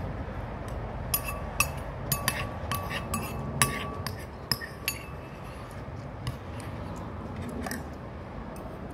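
Metal cutlery clinking against ceramic dishes: a string of light clinks, each with a short ring, most of them in the first half. Under it runs a low steady rumble.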